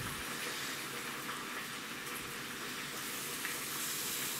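Steady sizzling of potatoes frying in oil in a pan, with a single small click at the start.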